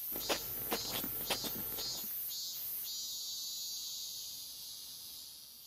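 Steady high-pitched chorus of summer insects, with a few short light ticks in the first two seconds, fading out near the end.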